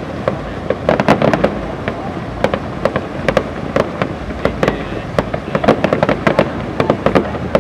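Fireworks display: an irregular string of sharp bangs and crackles from bursting shells, thickest about a second in, around three seconds and again near six seconds.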